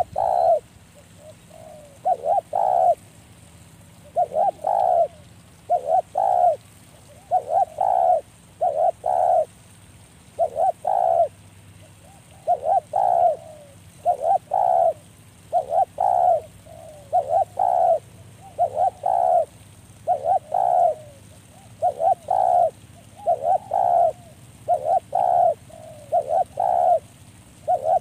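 Spotted dove cooing over and over in short phrases of two or three low notes, repeated about every second and a half.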